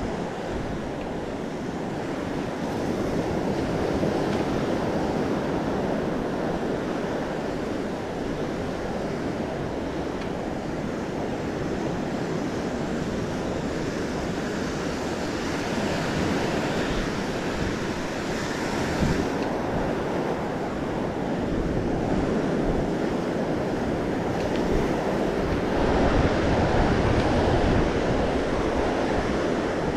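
Ocean surf washing on the beach, swelling several times as waves break, with wind rumbling on the microphone.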